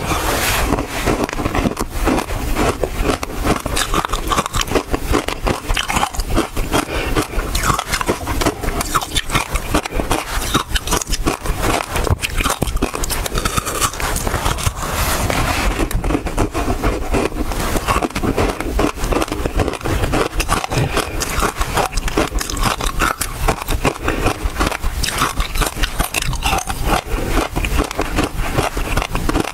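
Ice frozen with basil seeds being bitten and crunched, a dense unbroken run of sharp cracks and crackles as the pieces break and are chewed.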